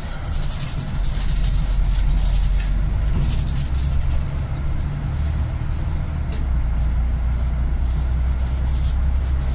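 Engine and road noise of a moving vehicle heard from inside its cabin: a steady low drone that grows louder about a second in, with intermittent high crackling on top.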